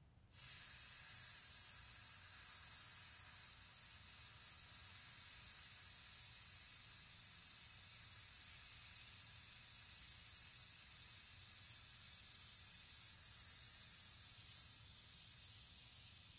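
A man's voiceless 'sss' hiss on a long out-breath, starting abruptly about a third of a second in and holding steady. It is a singer's breath-support exercise: the hiss follows a deep, low breath, which is what lets it last this long.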